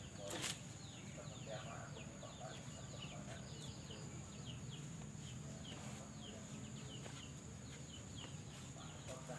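Small birds chirping: many short, quick falling chirps, over a steady low hum.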